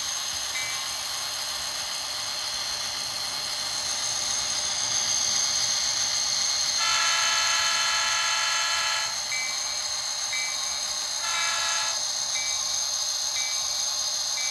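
Bachmann N-scale SD45's onboard DCC sound decoder playing through its small speaker. The locomotive bell dings about once a second over a steady high whine. About seven seconds in, a horn sounds a long blast of about two seconds, followed a couple of seconds later by a short blast.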